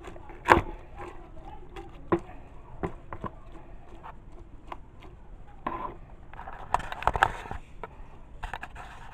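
Kitchen handling sounds: scattered knocks and clicks of utensils and containers, with a loud knock about half a second in and a few brief scuffing bursts around seven seconds in and near the end.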